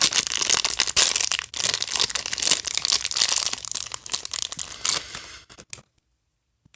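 Plastic blind bag from a toy-doll capsule being crinkled and torn open by hand, a dense crackling rustle that stops abruptly about six seconds in.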